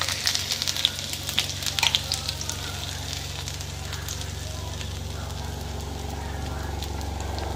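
Chopped ginger sizzling and crackling in hot oil in a pan: loudest as it goes in, then settling to a steadier, quieter sizzle. A steady low hum runs underneath.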